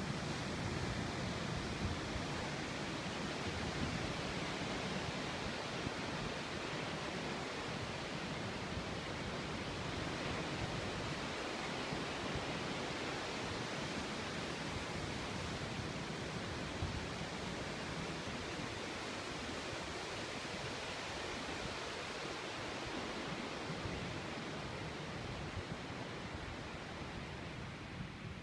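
Ocean surf breaking, heard as a steady, even rushing wash.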